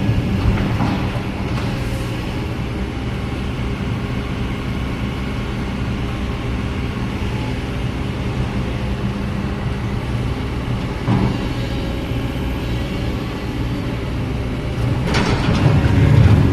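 Excavator's diesel engine running steadily under load, with a few brief clanks, the loudest near the end.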